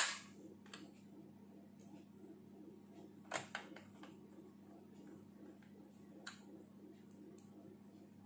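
A few sharp clicks and taps of a laptop's plastic casing and small tools being handled during reassembly: a loud click right at the start, a pair about three and a half seconds in, and a lighter one past six seconds, over a steady low hum.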